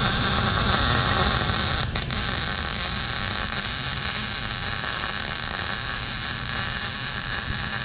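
Wire-feed welder's arc burning steadily as a continuous hiss and crackle while a beginner lays a bead, with a brief click about two seconds in.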